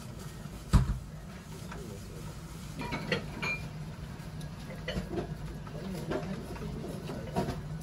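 Restaurant background: a steady low hum with scattered light clinks of tableware and faint voices, and one sharp knock about a second in.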